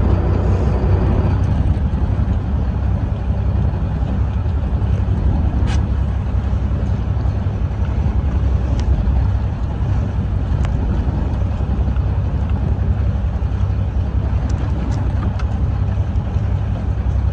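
Steady low rumble of a fishing boat's engine mixed with wind buffeting the microphone, with a few faint clicks.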